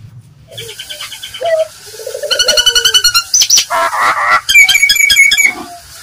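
Nias hill myna calling in a fast, varied run: whistled notes, a low wavering whistle, a harsh burst and strings of quick repeated high notes. It starts about half a second in and stops shortly before the end.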